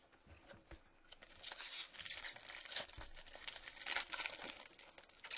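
Foil wrapper of a Topps Chrome trading-card pack being crinkled and torn open by hand, a dense crackling that starts about a second in.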